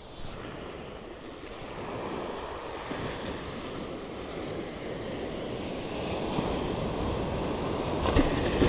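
Surf washing over the shore, a steady rushing that builds louder toward the end as a wave breaks close by.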